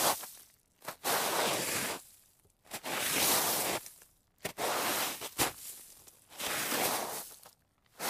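Repeated slides across snow, each a rough scraping swish about a second long with short gaps between them, and a short sharp click about halfway through.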